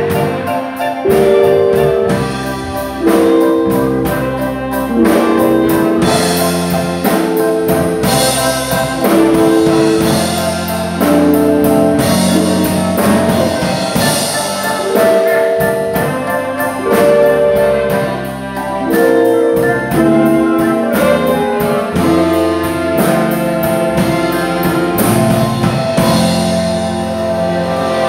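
Small band playing live: a horn section of saxophone, trombone and trumpets plays short held riff notes over electric bass guitar and drum kit.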